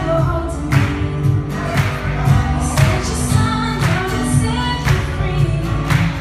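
Live worship band playing an instrumental stretch of a pop-rock song, with a steady drum beat, bass and sustained keyboard or guitar chords, and perhaps light backing vocals.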